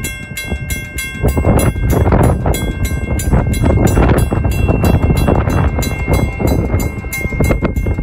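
Second-generation WCH mechanical railroad crossing bell ringing steadily at about four strikes a second, its ringing tones carrying between strikes: the crossing is activated, warning of an approaching train. Under it runs a strong, uneven low rushing noise.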